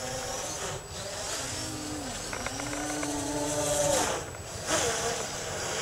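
V-tail quadcopter's electric motors and propellers whining in flight. The pitch dips, then climbs for about two seconds and drops away about four seconds in, then swells briefly again as the motors speed up and slow while it manoeuvres.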